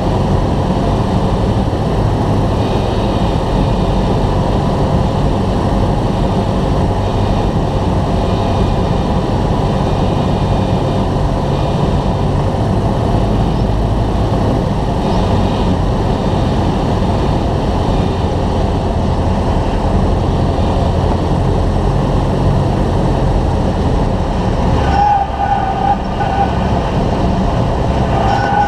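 Cessna 172's piston engine and propeller droning steadily inside the cabin on final approach and landing, with wind noise and low rumble. Near the end the upper hiss falls away and a short wavering tone sounds as the plane comes down onto the runway.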